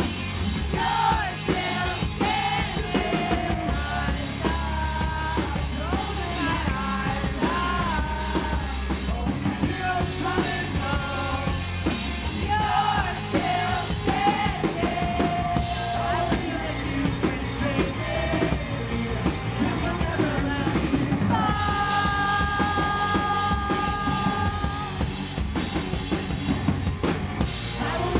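Live rock band playing: electric guitar over a drum kit, with a melody line that bends and wavers, and one note held for about three seconds near the end.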